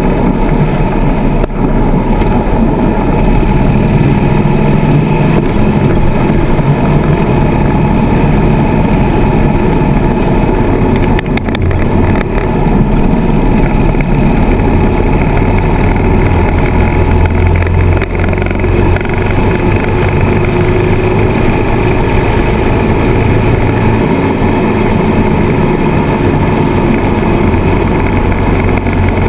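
Harley-Davidson Sportster's V-twin engine running steadily at cruising speed, recorded on board the moving motorcycle, with a steady rush of wind noise over the microphone.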